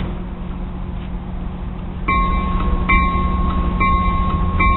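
A Metrolink train's low, steady engine rumble. About two seconds in, a bell starts ringing, striking about once a second.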